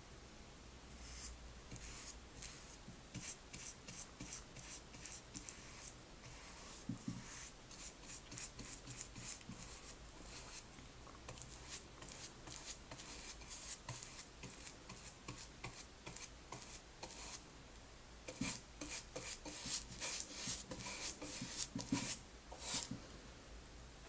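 Flat paintbrush bristles rubbing black paint onto bare wood in quick, repeated back-and-forth strokes. After a brief pause about two-thirds through, the strokes come louder near the end.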